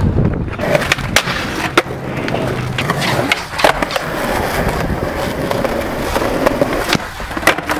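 Skateboard wheels rolling on asphalt and concrete, broken several times by sharp clacks of the board popping and landing during flatground tricks.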